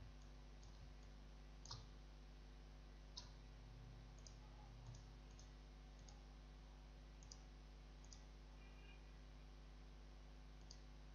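Faint computer mouse clicks, about a dozen at irregular intervals, two of them a little louder near the start, over a low steady hum.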